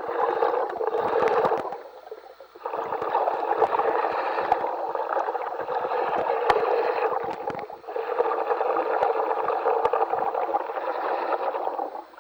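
Steady hissing and gurgling of a diver's breathing gas and exhaust bubbles, heard through the dive radio, with two brief pauses.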